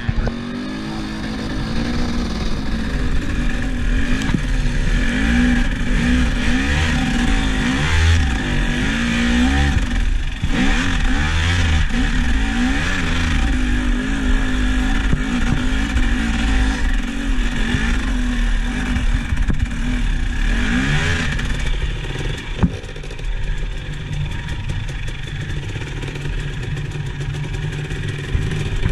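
Vehicle engine running under changing throttle, its pitch rising and falling, with one sharp knock about three-quarters of the way through.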